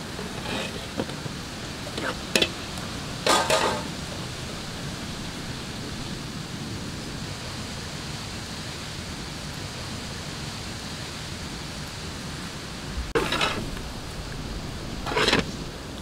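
Metal pot of palmyra fruits in palm-jaggery water boiling over a wood fire, with a steady hiss. Several short clatters break in, the loudest about three seconds in and twice near the end.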